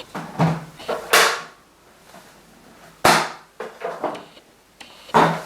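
Handling of a Henry vacuum cleaner's plastic parts: a series of sharp clacks and knocks, loudest about a second in and again about three seconds in.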